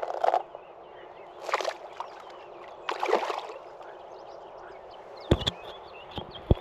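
Water splashing and sloshing in three short bursts as a released asp is held in the river shallows and then kicks free and swims off. A few sharp knocks near the end.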